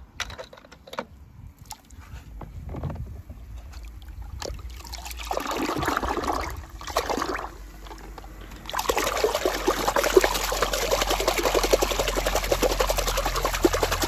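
Water sloshing and splashing in a plastic tub as small toy cars are dunked and swished through it by hand. A few light knocks come first, then a short spell of sloshing, and from about two-thirds of the way in the splashing is heavy and continuous.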